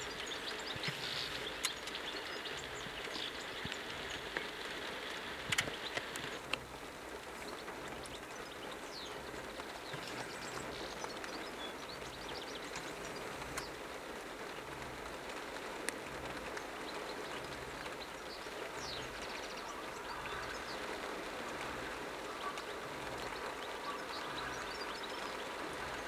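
European goldfinch twittering in short, scattered high notes, faint over a steady rushing background noise.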